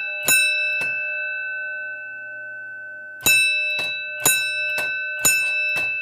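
Edwards single-stroke fire alarm bell, its gong struck once per signal. There is one stroke near the start, then after a pause of about three seconds three more strokes about a second apart. Each strike rings on and slowly dies away, with a fainter knock about half a second after each stroke.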